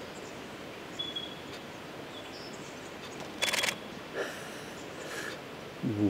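Canon 7D Mark II DSLR shutter firing a quick burst of frames about halfway through, a rapid run of mechanical clicks.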